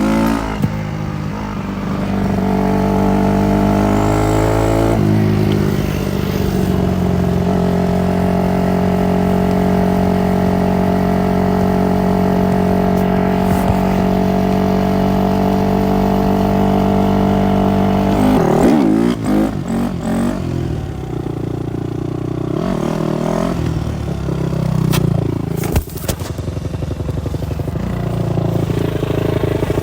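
Supermoto motorcycle engine revving up in the first few seconds, then running at a steady high note for about twelve seconds. It drops off about two-thirds of the way through and carries on at lower, varying revs, with a couple of sharp clicks near the end.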